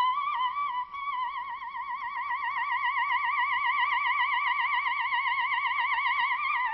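Soprano holding a single very high note near high C, wavering quickly in a fast vibrato, with a short break under a second in. This is the 'squeak note' that is taken for throat closure: a light voice faked by strongly tensed throat-closing muscles.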